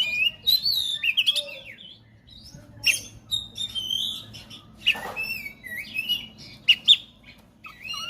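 Oriental magpie-robin (kacer) singing a fast, varied song of short whistles, chirps and quick sliding notes, with a brief pause about two seconds in.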